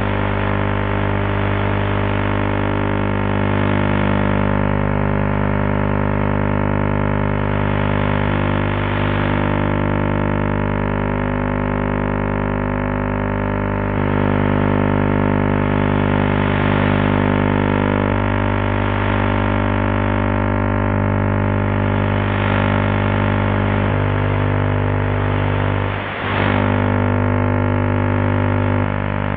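Analogue TV vision carrier on Band I channel E4 (62.249 MHz), received over transequatorial propagation and demodulated as audio: a steady droning buzz of many stacked tones whose mix shifts in steps every few seconds. It is what the picture signal sounds like when the signal is too weak for the sound carrier to come through. There is a brief drop out near the end.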